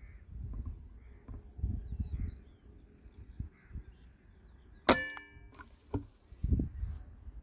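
A Kral Puncher Breaker .22 (5.5 mm) PCP air rifle fires once about five seconds in: a sharp crack followed by a short metallic ring. Low rumbling thumps come and go around it.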